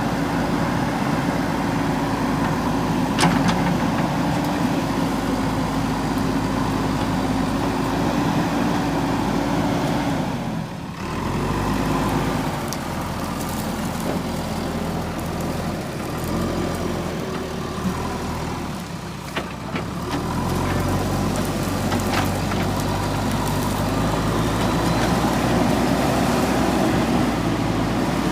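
JCB 3DX backhoe loader's diesel engine running while working, its revs dropping sharply about ten seconds in and dipping again shortly before twenty seconds, then picking back up. A single sharp knock about three seconds in.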